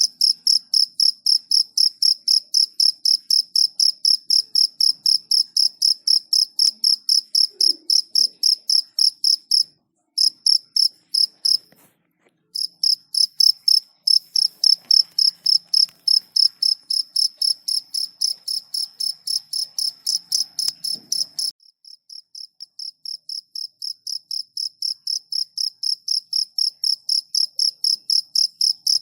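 Cricket chirping, a high-pitched chirp repeated evenly about three times a second. The chirping breaks off briefly around ten and twelve seconds in, and after about twenty-one seconds it drops quieter and slowly grows louder again.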